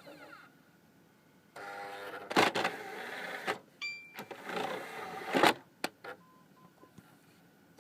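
Xbox 360 Slim DVD drive working a disc eject: a motor whirs with sharp clunks from the tray mechanism, a short electronic beep comes in the middle, and then a second whir ends in another clunk. The owner calls it a weird sound that comes every time he ejects a disc and is unsure whether it is normal.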